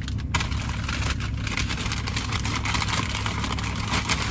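Brown paper takeout bag rustling and crinkling as a hand rummages inside it, over the steady low hum of the car idling.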